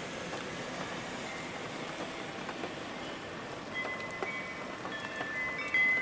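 Steady rain falling and pattering on a surface. From about four seconds in, a few ringing chime tones come in, with a louder strike near the end.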